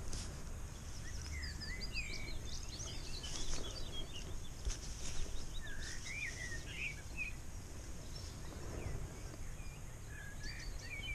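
Songbirds chirping, with many short notes gliding up and down, over a steady low rumble. A few faint knocks come from handling the landing net.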